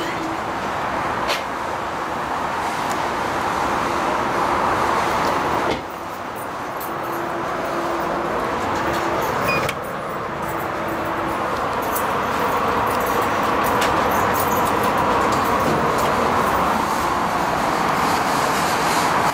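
Steady background rumble and hiss that swells and fades slowly, broken by two abrupt drops in level about six and ten seconds in.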